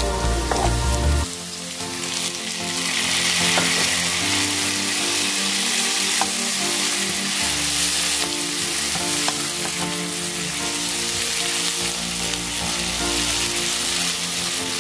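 Vegetables sizzling as they fry in butter in a pan, the sizzle growing louder about two seconds in, with a few light clinks of stirring.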